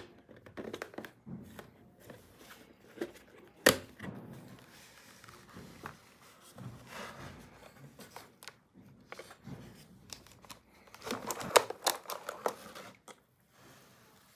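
Hands handling a pink plastic toy pet carrier and its clear plastic dome: one sharp plastic click a few seconds in, then scraping and rubbing, and a quick run of clicks and rattles near the end.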